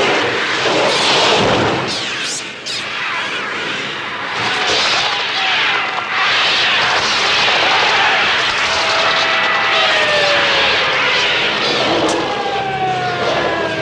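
A swarm of attacking gulls: a dense, continuous roar of shrieks and wingbeats, with long falling cries in the second half. The film's bird sounds are electronic, made on a Mixtur-Trautonium.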